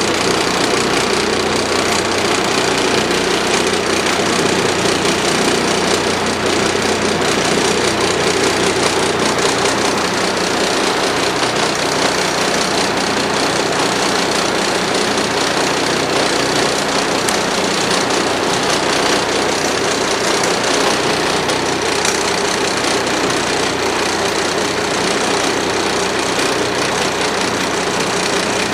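Charter fishing boat's engine idling, a steady, unbroken drone.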